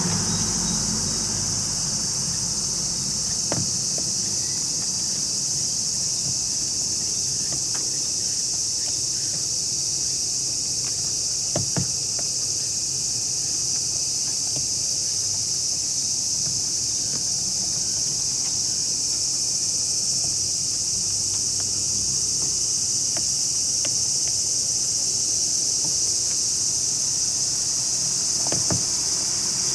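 Steady high-pitched shrilling of insects, like a cicada or cricket chorus, unbroken throughout, with a few faint knocks now and then.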